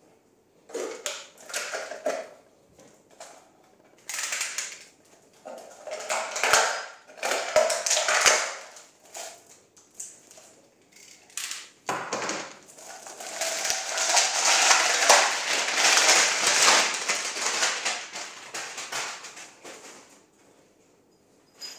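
A coiled PVC air hose being handled, with rustling and crinkling noises. They come in irregular bursts for the first ten seconds, then a longer continuous stretch starts about twelve seconds in and lasts some eight seconds.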